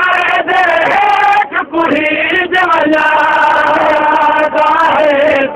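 Male voices chanting a noha, a Shia mourning elegy, together in long held melodic lines, with a short break for breath about one and a half seconds in.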